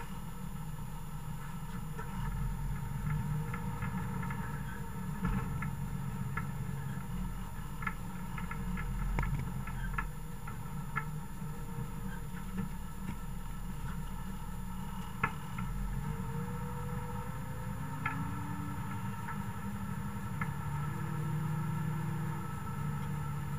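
MB trac 1000 tractor's six-cylinder diesel engine running steadily under load, heard from inside the cab, with scattered clicks and rattles and one sharper knock about fifteen seconds in.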